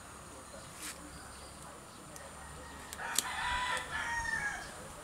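A rooster crowing once in a drawn-out call of about a second and a half that drops in pitch at the end. Sharp clicks from pruning shears snipping twigs come about a second in and again just as the crow begins.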